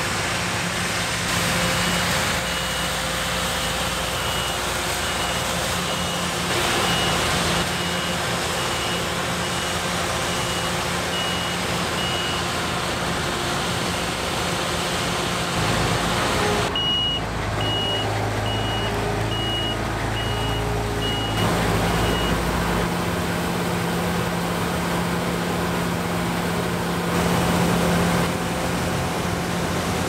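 Fendt 6335 C combine harvester running steadily as it cuts and threshes canola, with a high electronic warning beeper sounding about three times every two seconds, in two spells.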